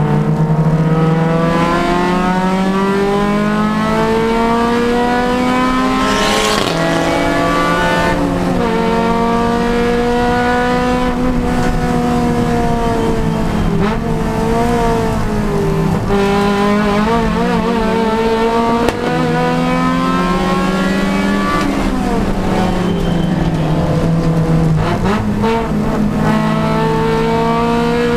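Honda Civic Si race car's four-cylinder engine at racing speed, revs climbing and then dropping sharply at each upshift a few seconds in. Later the revs fall away through braking and downshifts and pull up again, repeating lap-style.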